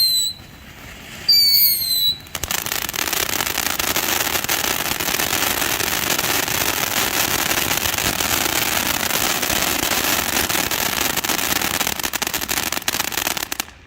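Cuckoo fountain firework going off: a whistle falling in pitch about a second in, then the fountain's spray hissing and crackling steadily for about eleven seconds before cutting off suddenly near the end.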